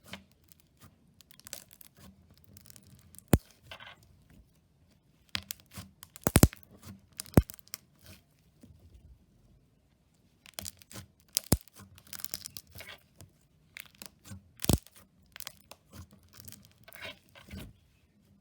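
Slime being squished and stretched by hand, giving irregular sticky crackles with several sharp pops, the loudest a little past a third of the way in, and a short lull near the middle.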